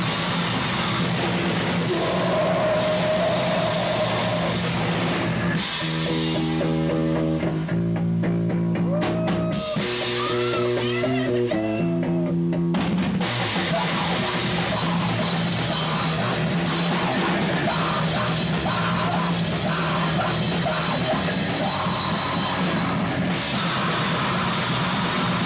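A live rock band with electric guitar and drum kit plays loud. About six seconds in, the drums and cymbals drop out and the guitar rings on alone with held notes and a few pitch bends. The full band comes crashing back in around thirteen seconds.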